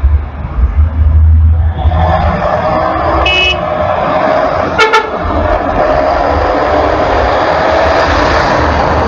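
Dense highway traffic of cars, vans and trucks passing close, a continuous tyre and engine rush with a heavy low rumble at the start. A short car horn toot sounds about three seconds in, with another brief one near five seconds. A concrete mixer truck passes close near the end.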